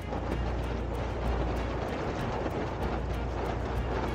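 Wind buffeting the microphone on a sailing boat under way: a steady rushing noise with a deep, uneven rumble.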